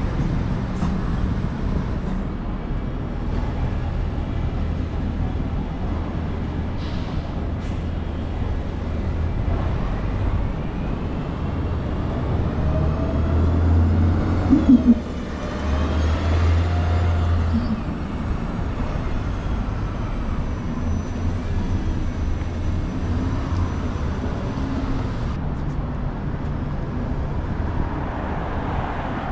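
City street traffic with a steady low rumble of passing cars. About midway an all-electric transit bus passes close, its motor whine rising and then falling in pitch, with two quick sharp knocks at its loudest point.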